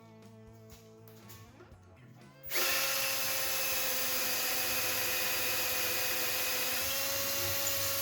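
Battery drill starting about two and a half seconds in and running steadily under load, a 3/16-inch bit drilling out a rivet in a Corvair flywheel. Quiet background music plays before it starts.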